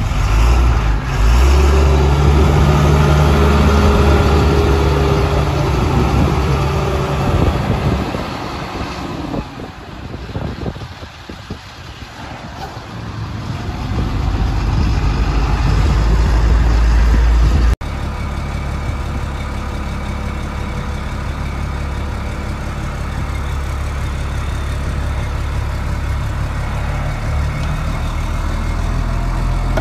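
Caterpillar 3126 six-cylinder diesel engine of a medium-duty truck running. It is loud at first, drops away for a few seconds in the middle and comes back up, then runs steadily after a cut.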